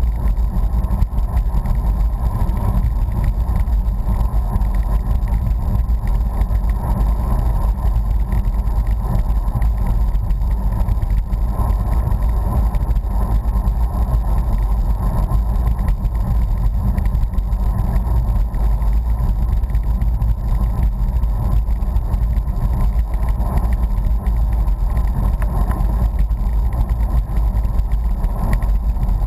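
Wind buffeting the microphone of a camera on a moving bicycle: a steady, loud rumble with no breaks.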